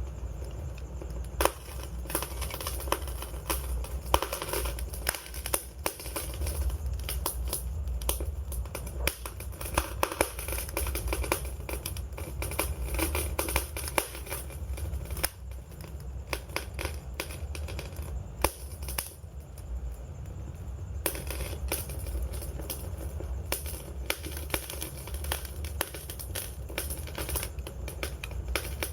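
Wood fire crackling: irregular snaps and pops over a steady low rumble of the burning flames.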